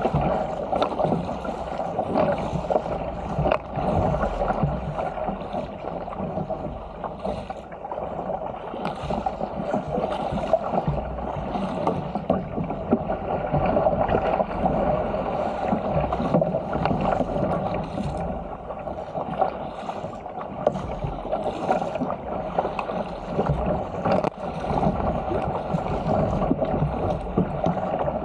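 Continuous rush and splash of seawater along the hull of a Stealth 475 fishing ski as it is paddled downwind through chop, with irregular splashes from the paddle blades and waves.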